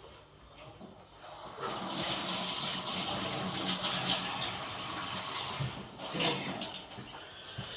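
Kitchen tap running into the sink for a few seconds, starting about a second in and shutting off after about five seconds, followed by a few light knocks.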